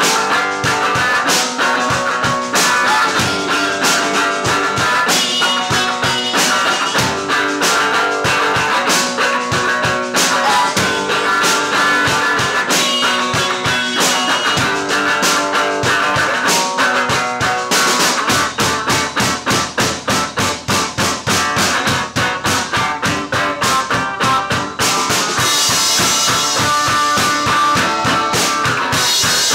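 Live rock band music: electric guitar with drum kit. About two-thirds of the way in, the playing turns to a fast, even pulse, and near the end a bright cymbal wash comes in over it.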